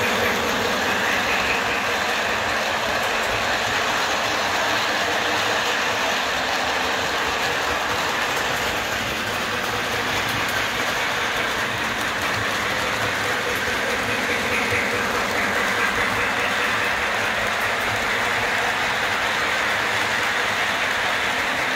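O gauge model train running on three-rail track: a steady rolling rumble of wheels and motor.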